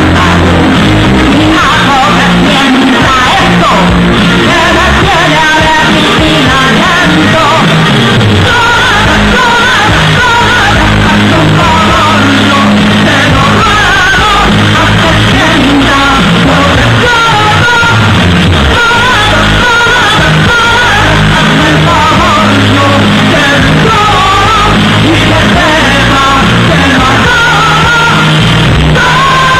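Loud live pop-rock concert music: a woman sings into a microphone over a full band with a heavy bass line.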